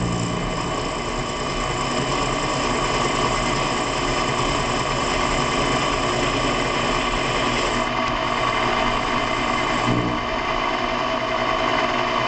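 Small metalworking machine tool running steadily under power, with a dense mechanical texture and a few fixed tones, as it machines brass.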